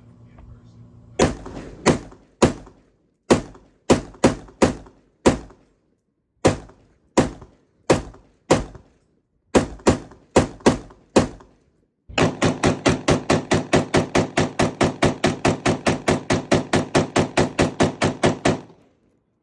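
AM-15 AR-15-pattern pistol fired semi-automatically: about seventeen shots at an uneven pace, then a rapid string of about thirty shots at four to five a second that stops abruptly. The rifle cycles through the string without jamming.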